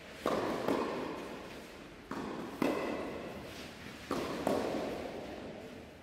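A doubles tennis rally: ball bounces and racket strikes on the tennis ball in three quick bounce-then-hit pairs about a second and a half apart, each one echoing in a large indoor tennis hall.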